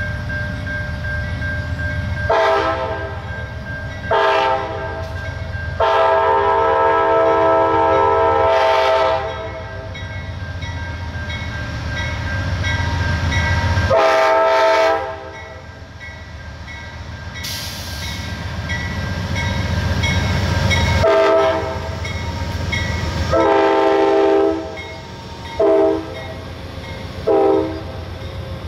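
Amtrak diesel locomotive sounding its multi-note air horn in a series of blasts: three in the first several seconds, the third held for about three seconds, then five more, the last two short. Under the horn is the low rumble of the approaching train, growing louder as the locomotive and passenger cars draw near and pass.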